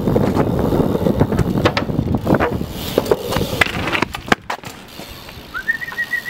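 BMX bike tyres rolling on asphalt, with scattered sharp clicks and knocks from the bike; the rolling grows quieter about two-thirds of the way through. Near the end a steady high tone sounds for about a second.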